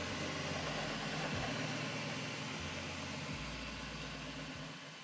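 Bambu Lab P1P 3D printer printing: a steady fan hiss with a low stepper-motor hum that changes pitch every second or so as the toolhead moves. It fades out near the end.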